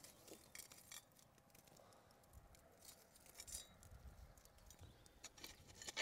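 Near silence, with a few faint, scattered clicks from the smouldering ember fire of a makeshift ground oven as it is tended.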